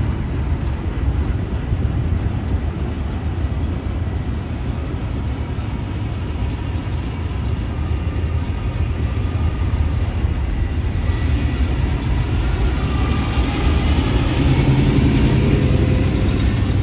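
Double-stack intermodal container train rolling past on an elevated concrete viaduct: a steady low rumble of the cars, growing somewhat louder in the last few seconds, with a higher hiss and a few faint steady tones joining about two-thirds of the way through.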